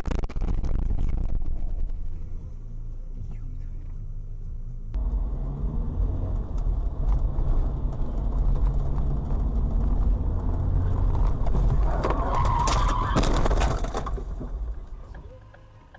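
Low, steady road and engine rumble of a moving car, with a loud, harsh noisy stretch lasting about two seconds near the end.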